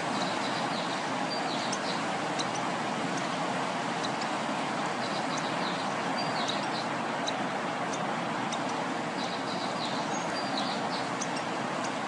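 Lovebird chick giving short, high begging cheeps in little clusters as it is spoon-fed, over a steady background hiss.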